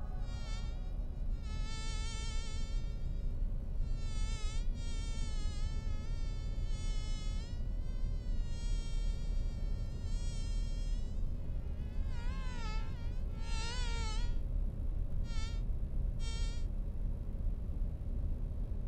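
A mosquito whining in a series of passes, its high thin pitch wavering and gliding up and down as it comes and goes. Short gaps separate the passes, and the last few, about two-thirds of the way through, are brief. A low steady hum runs underneath.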